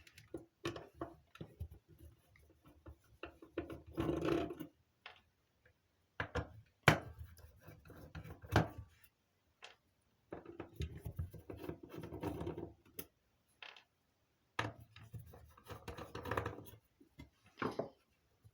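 Handling noise from a Stornophone 6000 radio telephone being turned over and handled: scattered clicks and knocks with stretches of scraping, and one sharp knock about seven seconds in.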